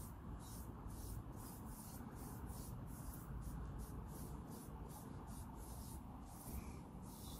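Foam brush stroking oil-based wood stain onto a bare wooden rifle stock: faint, rhythmic scratchy swishes, about three a second, over a low rumble.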